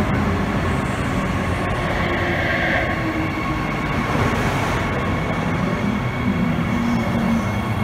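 Transperth B-series electric multiple-unit train running past along the platform: a steady rumble of wheels on rail with even humming tones through it.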